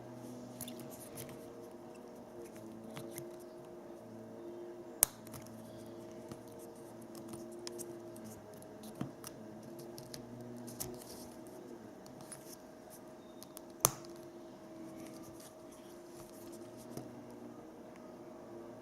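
Small scattered clicks and rubbing from a wristwatch and its leather strap and metal folding clasp being handled, with two sharp clicks about five and fourteen seconds in. A faint steady hum runs underneath.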